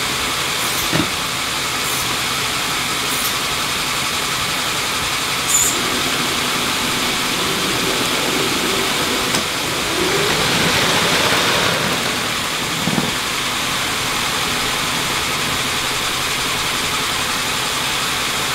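Steady mechanical whirring of Lego motors and gearing as the automated container crane, train and monorail run. A few light clicks come in the first six seconds, and the whirring swells slightly around the middle.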